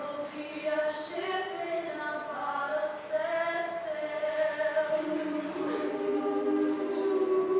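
All-female a cappella group singing in close harmony, voices only with no instruments, holding soft chords that shift every second or two, with a few sharp "s" consonants.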